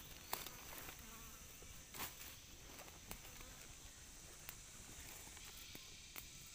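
Faint, steady high-pitched insect buzzing, with a few scattered light clicks.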